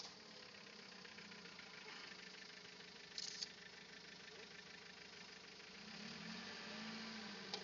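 Mitsubishi Pajero 2.5 turbodiesel engine heard faintly from a distance as the 4x4 crawls off-road, its pitch rising briefly near the end as it revs. A brief rustle about three seconds in.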